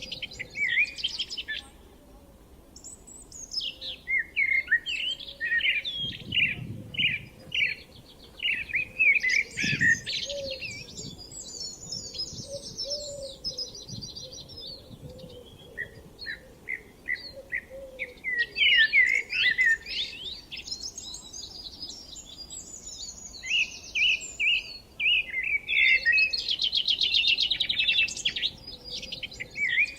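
Songbirds singing in a spring countryside chorus: phrases of quick chirps and trills several seconds long, with short pauses between them.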